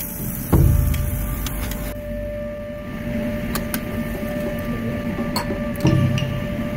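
Metal tongs clicking a few times against a stainless tabletop barbecue grill over a steady mechanical hum, with two dull thumps, one about half a second in and one near the end.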